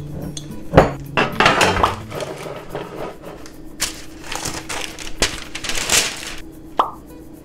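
A silicone spatula stirring stiff cookie dough in a glass bowl, with a sharp knock about a second in. Then parchment paper crinkles and rustles as it is spread over a metal baking sheet.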